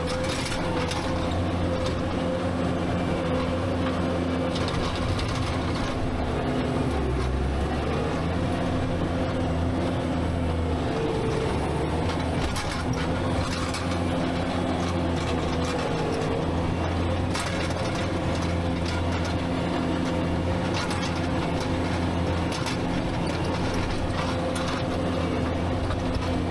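Skid steer engine running steadily under working load, its pitch shifting now and then, with a higher wavering whine and scattered metallic clanks and rattles.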